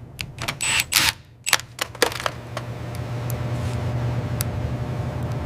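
Several sharp mechanical clicks and short clatters, then a steady low machine hum.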